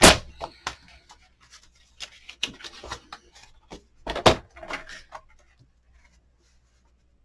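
Cardstock and craft supplies being handled on a desk: sharp knocks and taps with short rustles of paper, loudest at the start and about four seconds in, dying away after about five seconds.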